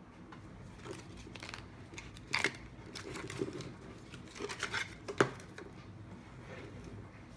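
Hands sliding a printed sleeve off a small hard plastic carry case on a wooden table: rustling and scraping with scattered clicks, and two sharp clicks, one about two and a half seconds in and the louder one about five seconds in.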